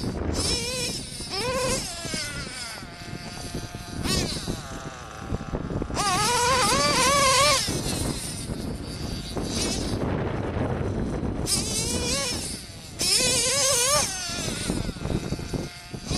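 Small nitro RC engine, a modified JL21 big block in an OFNA Hyper 10SC short-course truck, running at high revs, its high buzzing note rising and falling quickly with the throttle. It is loudest twice, about six seconds in and again about thirteen seconds in.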